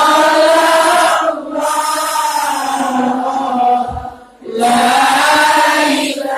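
A congregation sings Islamic sholawat together in long, drawn-out chanted phrases, with two short pauses for breath, about one and a half seconds and four seconds in.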